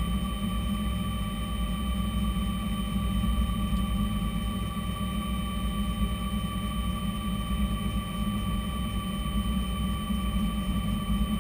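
Bell 206 JetRanger helicopter on the ground, its Allison 250 turboshaft running steadily with the rotor turning, heard from inside the cabin: a steady turbine whine of several even tones over a low rumble.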